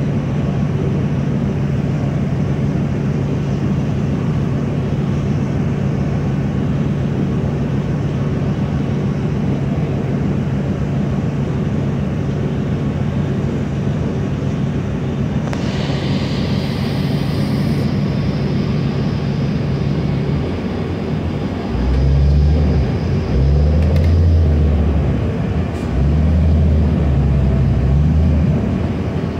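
New Flyer D40LF diesel city bus heard from inside the cabin, its engine running at a steady low idle, with a high hiss coming in around the middle. About two-thirds of the way in the bus pulls away: the engine gets louder and its note climbs and drops in steps as it accelerates.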